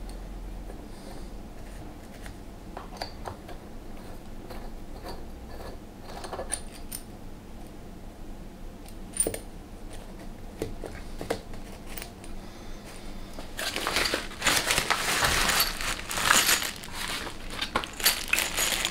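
Scattered light clicks and clinks of small metal parts being handled. About two thirds of the way in comes a few seconds of louder crinkling and rattling of plastic packets of screws.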